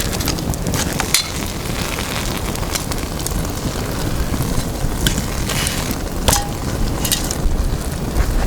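Campfire crackling, with scattered sharp pops over a steady low rumble of wind on the microphone.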